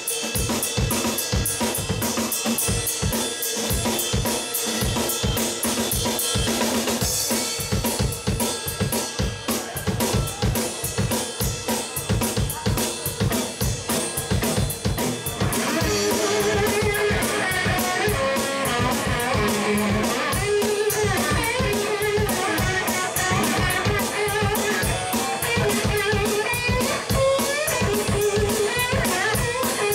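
Live rock band playing an instrumental stretch: a steady drum-kit beat with bass and guitar, and from about halfway an electric guitar lead with bending notes comes in over it.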